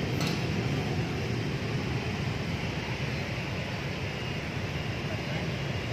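Steady outdoor background of street traffic: an even low rumble with a hiss.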